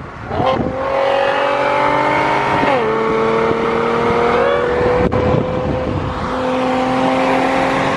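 Nissan 370Z's V6 with an aftermarket valvetronic exhaust and Y-pipe, accelerating hard under full throttle. The exhaust note climbs, drops with an upshift about three seconds in, then climbs steadily again.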